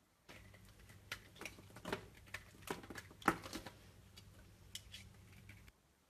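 A knife blade cutting and shaving a bar of pink soap held in the hand, making a series of short scraping, crumbling strokes as flakes break off; the loudest stroke comes about three seconds in.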